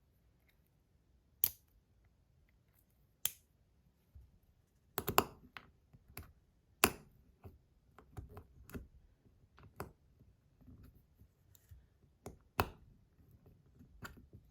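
Stainless steel fidget slider being taken apart by hand while its magnet inserts are swapped: scattered sharp clicks and snaps of small metal and plastic parts, with quieter handling between them and a quick cluster of clicks about five seconds in.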